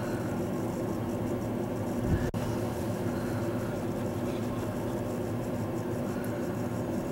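Vehicle engine running steadily under a haze of blizzard wind noise, with a momentary break a little over two seconds in.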